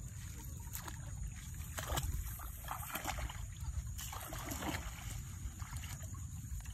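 Water splashing and trickling as a woven bamboo fish trap is lifted from a flowing ditch and set back down in it, with several short splashes and a steady low rumble underneath.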